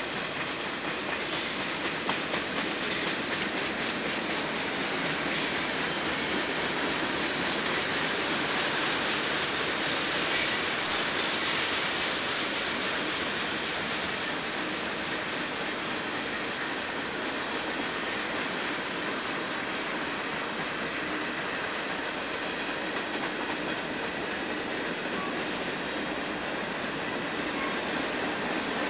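Freight cars of a long mixed freight train rolling past: a steady rumble and clatter of steel wheels on the rails, with a faint high wheel squeal for a while in the first half and a single sharper knock about ten seconds in.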